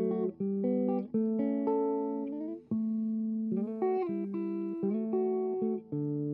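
Background music: a plucked guitar playing a steady run of melodic notes and chords.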